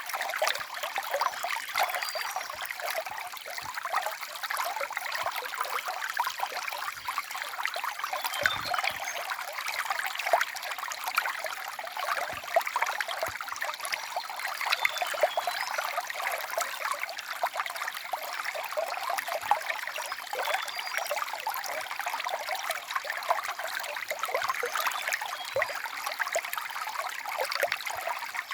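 Stream water trickling steadily, full of small splashes and gurgles.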